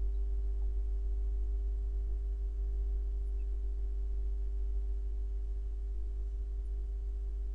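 Steady low electrical hum with a fainter steady tone above it.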